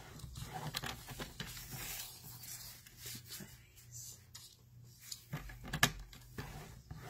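Card stock being slid and scored on a paper trimmer: soft rubbing of paper with a few light clicks of the trimmer arm and blade, over a low steady hum.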